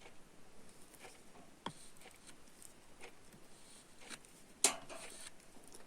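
Faint handling noise of hands holding a USB cable's plastic connector housing while freshly melted plastic sets: scattered small clicks and light rustling, with a sharper click about a second and a half in and a louder click with a brief rustle near the end.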